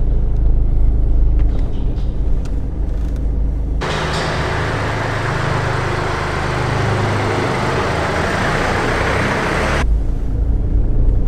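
Car driving through an underground car park: a low steady engine rumble from inside the cabin, switching about four seconds in to a hissier engine-and-tyre sound from outside as the car comes toward the camera, then back to the cabin rumble near the end.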